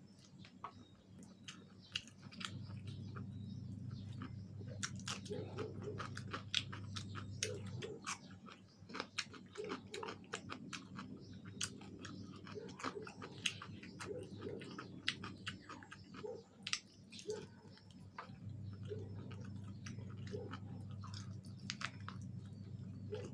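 Close-miked chewing and biting of fried chicken wings, with many irregular crunches and clicks throughout.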